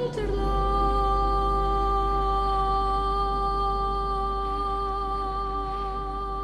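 Film score: a single sung note held steady and unwavering for several seconds, over a low steady rumble.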